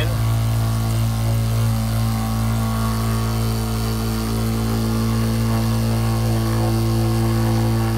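Small 12 V diaphragm water pump running with a steady hum, drawing water up a pipe out of a bottle as it sucks in and primes.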